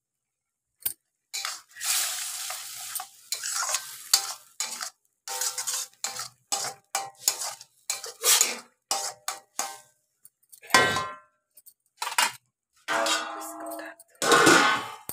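Steel spatula scraping and clanking against a steel kadhai in quick, irregular strokes while stirring a thick onion-spice masala as it roasts. Near the end a steel lid clanks onto the pan with a short metallic ring.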